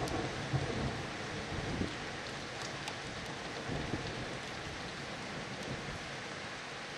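Thunder rumbling low and dying away over the first couple of seconds, over steady rain with a few drops ticking on the glass.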